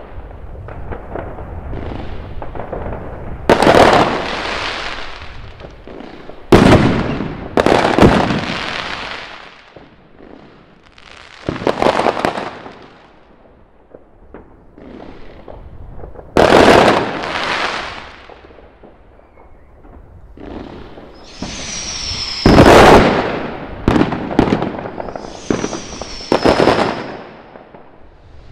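Fireworks going off: loud bangs every few seconds at irregular intervals, each dying away over a second or two. Two high whistles, falling slightly in pitch, sound in the second half.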